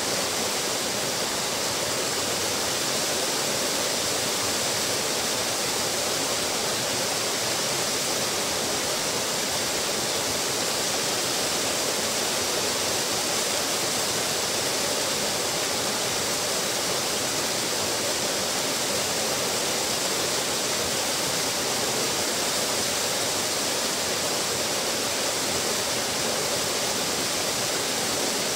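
Small waterfall pouring over a stone ledge into a plunge pool: a steady, unbroken rush and splash of falling water.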